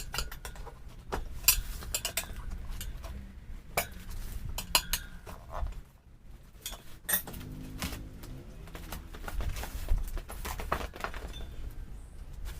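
Metal tools and parts clinking and knocking: a run of sharp metallic clicks at irregular intervals, some with a brief ring.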